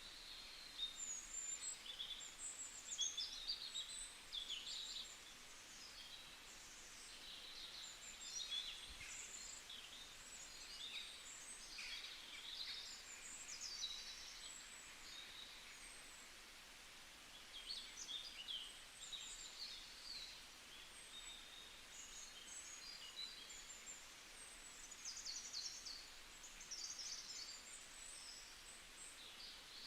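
Many small birds chirping, with short high calls overlapping one another over a faint background hiss; the calls thin out briefly about halfway through.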